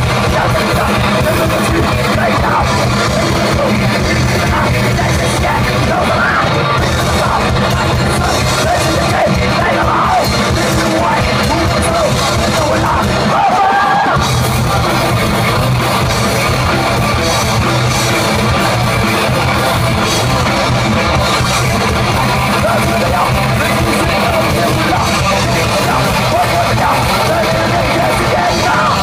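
A thrash metal band playing live: loud distorted electric guitars and a drum kit, with shouted vocals.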